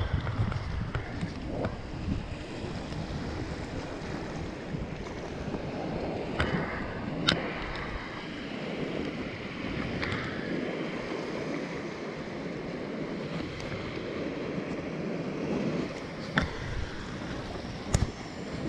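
Small waves washing onto a sandy beach, with wind buffeting the microphone. A few sharp clicks stand out.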